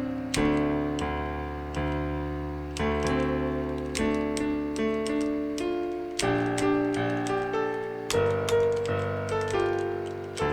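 Virtual piano played from a computer keyboard: piano notes and chords struck about once a second, each fading away, with the clatter of the computer keys pressed along with them.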